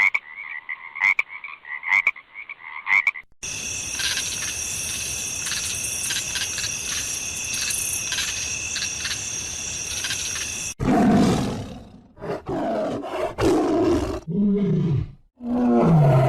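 A run of animal sound effects. First come short pitched calls about once a second. Then, about three seconds in, a steady high insect chorus with held shrill tones. Then, near eleven seconds in, several deep animal roars that fall in pitch.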